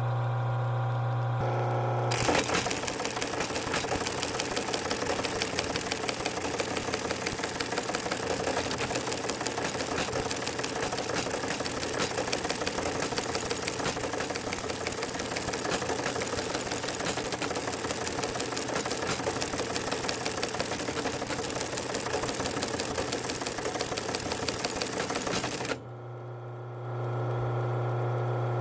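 Teletype TT-7/FG (military Model 19) teleprinter printing a received message: its motor starts with a steady hum, and about two seconds in the typebar page printer breaks into a rapid, continuous clatter of typebars and carriage. The clatter stops a few seconds before the end, leaving the motor humming on its own.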